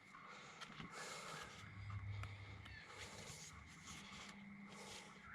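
Faint rustling and light ticks of paper as a parts catalogue is leafed through, over quiet room tone with a faint steady high whine.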